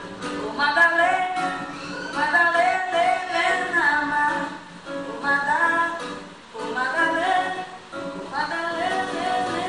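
A woman singing a Brazilian popular music (MPB) song in phrases of a second or two, with held and sliding notes.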